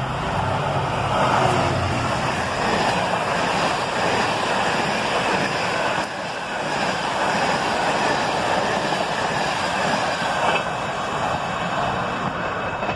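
Diesel locomotive hauling an intermodal container freight train through a station. The engine drones low for the first two seconds or so, then the container wagons pass with a long, steady rush of wheel and wagon noise.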